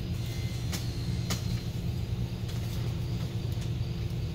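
Steady low hum in the room with a faint steady tone, broken by four sharp clicks of a computer mouse at uneven intervals as the 3D cabinet model is worked on.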